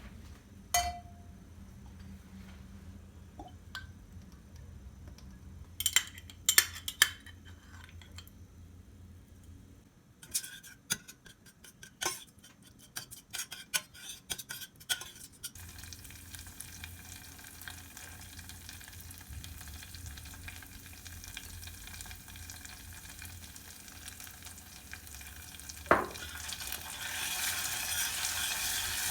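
Kitchen cooking sounds: scattered clinks and knocks of utensils and pans, then a quick run of taps, then food sizzling in a hot pan, the sizzle growing louder after a knock near the end.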